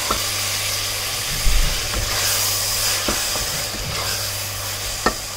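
Onion and tomato paste sizzling as it fries in oil in an aluminium pressure cooker, stirred with a spatula that scrapes the pot and knocks it lightly a few times, over a steady low hum.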